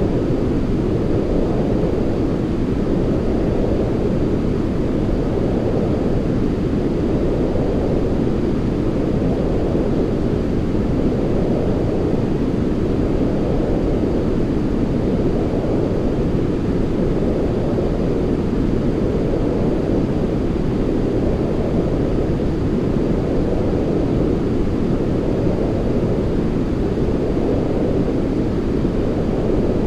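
Continuous white noise for sleep, deep and low with little hiss, swelling gently about every three seconds.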